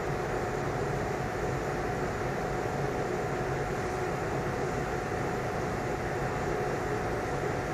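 Steady mechanical hum and hiss with a faint constant whine in it, unchanging throughout.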